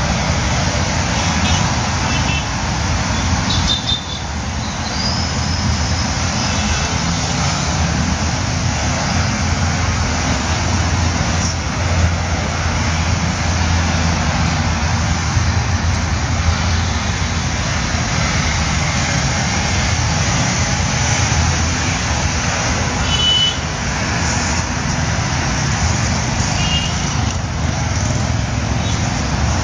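Steady road traffic noise from passing vehicles' engines and tyres, with a few brief high tones now and then.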